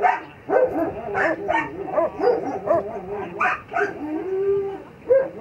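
Dog yipping and whining excitedly in quick short calls, several a second, with one longer steady whine about four seconds in.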